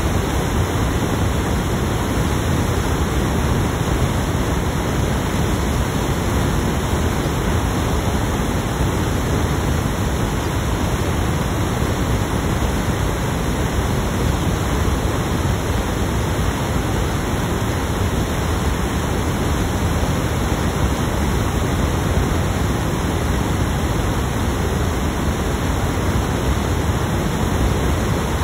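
Loud, steady hiss of static that never changes. It is a recording fault that buries the talking.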